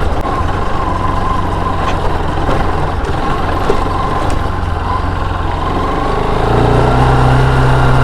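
Bajaj Pulsar RS200 motorcycle's single-cylinder engine running as the bike is ridden over a rough off-road track. The engine note grows louder and steadier about six and a half seconds in.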